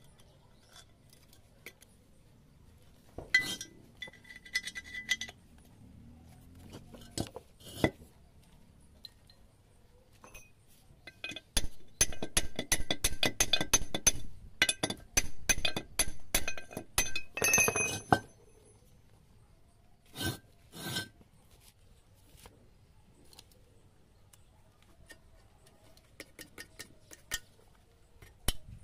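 Metal tools and parts clinking and tapping against a cast-iron gearbox housing while circlips and a bearing shaft are fitted into the bearing bores. There are scattered clicks with a ringing clink a few seconds in, then a dense run of quick ringing taps from about twelve to eighteen seconds in, and two sharp knocks just after that.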